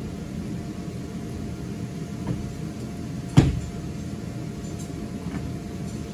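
Electric blower of an inflatable waterslide running with a steady hum, broken once about three and a half seconds in by a single sharp knock.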